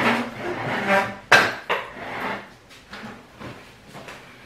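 Handling noise as the recording camera is moved and propped up on a bathroom counter: rustling, with a sharp knock a little over a second in, another soon after, and a few lighter clatters of objects being set down.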